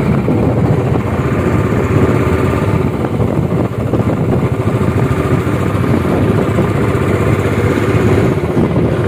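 Steady engine and wind noise of a motorcycle being ridden at road speed, heard from the seat as a constant low rushing.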